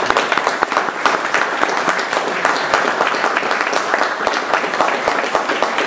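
Audience applauding: many people clapping, dense and steady.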